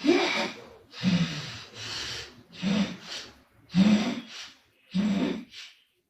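A sleeping woman snoring in loud snorts, five sharp noisy breaths about a second apart, some followed by a shorter one.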